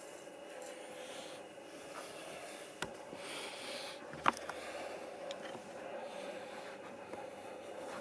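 Handling noise as the camera is picked up and moved: two sharp clicks, the second and louder one just after four seconds, over a steady faint hum.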